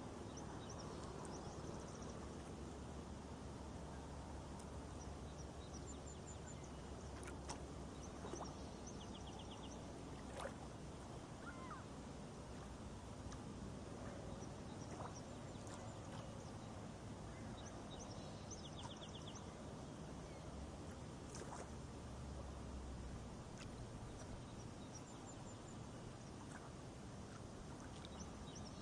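Shallow stream trickling over pebbles, a steady soft rush of water, with small birds chirping briefly now and then.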